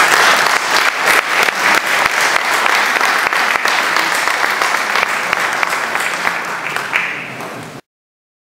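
Audience applauding: a dense, steady run of many hands clapping that cuts off suddenly near the end.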